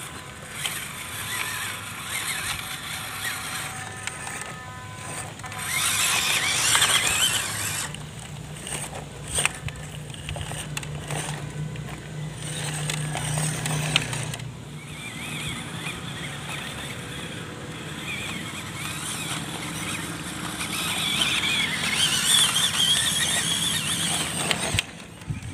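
Small RC crawler trucks with electric motors (a WPL C24 pickup and an MN99S Defender with a 260-size motor) whining and squealing through their gearboxes as they crawl over dry dirt, with the tyres scrabbling on the soil. It swells louder twice, around six seconds in and again near the end.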